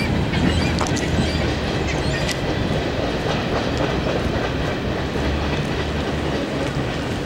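Freight cars of a CSX manifest train rolling past on the rails: a steady rumble with scattered wheel clicks.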